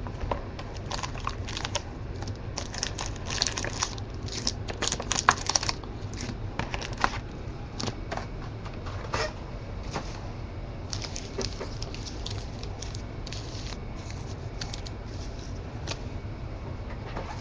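A sealed box of trading cards being opened by hand: plastic wrap and cardboard tearing and crinkling in irregular bursts of crackles and rustles, busiest in the first few seconds, over a steady low hum.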